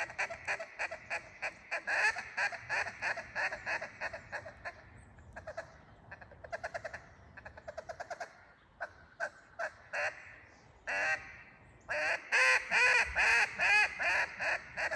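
Acrylic duck call (Riceland Meat) blown in mallard-hen quacks: a quick run of short quacks, about five a second, then a faster, softer chatter, a few single quacks, and near the end a loud string of longer quacks.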